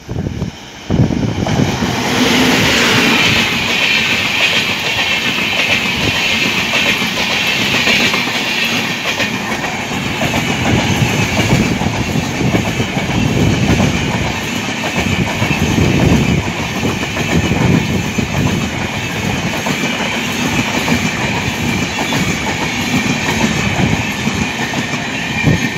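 Humsafar Special passenger train, hauled by an electric locomotive, passing close by at speed. A loud rush of wheels on rail builds about a second in as the locomotive goes by, then continues as the steady clatter of the passing coaches.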